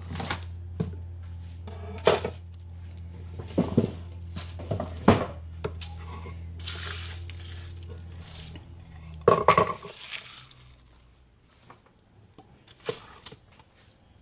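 Kitchen clean-up: clinks and knocks of dishes and utensils being handled and set down, about half a dozen separate strikes, with a brief papery rustle of garlic skins being swept up. A low steady hum underneath cuts off about two thirds of the way through.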